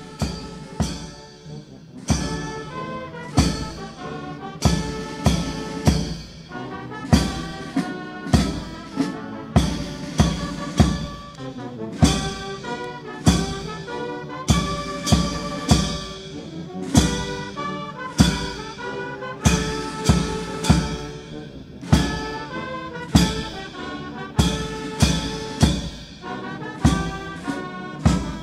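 Military brass band playing, with trumpets and trombones over a steady drum beat.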